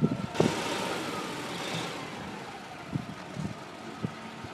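An engine running steadily under a burst of hissing noise that starts about half a second in and dies away over about a second and a half.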